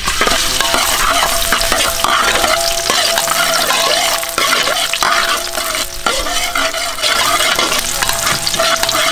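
Minced garlic sizzling in hot oil in a steel wok, the sizzle starting suddenly as the garlic hits the oil. A spatula scrapes and stirs against the wok throughout.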